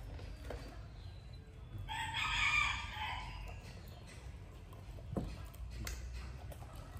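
A rooster crowing once, about two seconds in, lasting just over a second.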